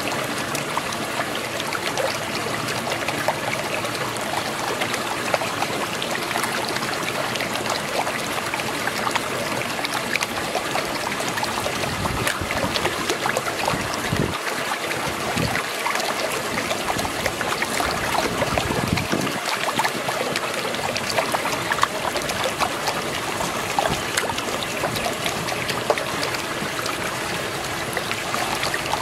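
Swirling water of a whirlpool, a steady rushing, gurgling noise with scattered small clicks and splashes throughout.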